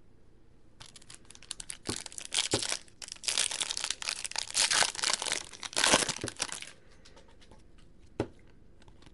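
Foil wrapper of a 2015 Bowman Chrome baseball card pack being torn open and crinkled, lasting about six seconds, then a single sharp click near the end as the stack of cards is handled.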